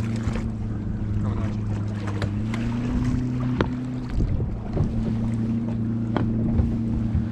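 Boat motor running with a steady low hum, wind buffeting the microphone, and a few sharp knocks.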